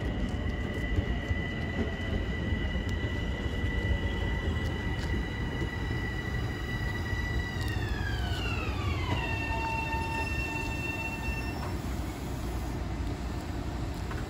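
Long Island Rail Road electric train pulling into the station and stopping: a low rumble of the cars under a steady high whine from the train's electric drive. The whine slides down in pitch about eight seconds in, holds at the lower pitch and cuts out a few seconds later as the train comes to a halt.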